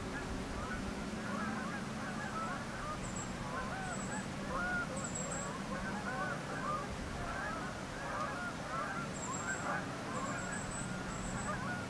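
A flock of birds calling together: a dense chorus of short, overlapping rising-and-falling calls, with a few thin high chirps now and then.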